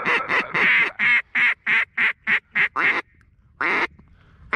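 A duck call blown in a quick run of about ten short quacks, then, after a pause, one longer quack. The hunter is calling to ducks that have just turned away, trying to bring them back.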